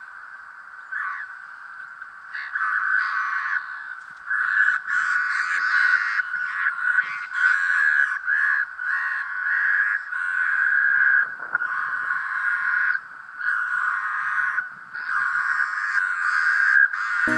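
A dense chorus of harsh animal calls, many overlapping in rasping stretches of a second or two each.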